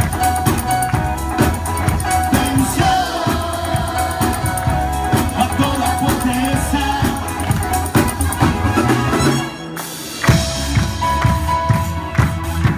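A live worship band playing: a steady drum beat with keyboard and bass, and voices singing. The music drops away briefly just before ten seconds in, then the band comes back in.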